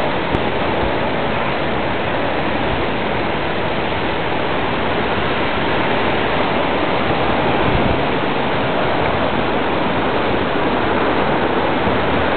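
Tropical-storm wind and rain: a steady rushing noise with no let-up.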